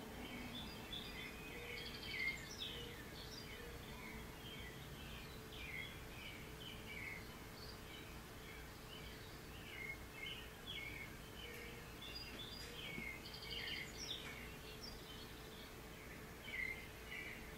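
Birds chirping and twittering, played back faintly from a TV bird video through its speakers: many short, quick chirps with a few louder ones, over a faint steady hum.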